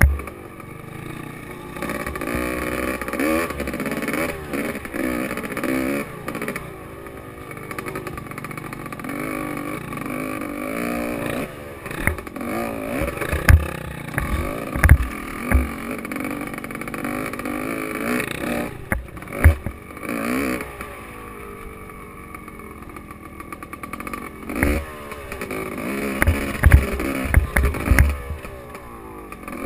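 Gas Gas EC 250 enduro motorcycle ridden hard on a sandy track, its engine revving up and falling back again and again through the gears, with sharp low thumps as the bike hits bumps.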